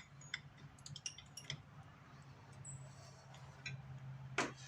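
Scattered light clicks and small knocks of equipment being handled, with one sharper knock near the end, over a low steady hum.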